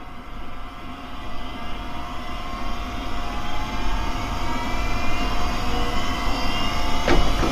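Aircraft engine noise growing steadily louder, with faint tones slowly rising in pitch. A sharp click comes near the end.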